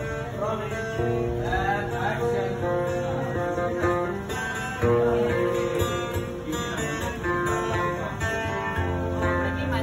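Acoustic guitar playing a tune, its notes held and changing about every second.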